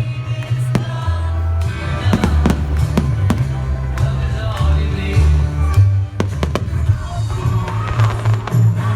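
Music soundtrack with a heavy bass line played loud over a fireworks display, with several sharp firework bangs and crackles going off over it.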